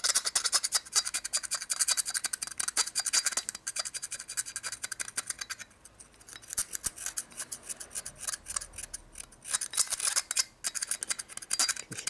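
Metal pick scraping and scratching inside the passages of a shovelhead oil pump body, digging out paint that got into the pump. The scratching is rapid and dense, thins out about halfway through and picks up again toward the end.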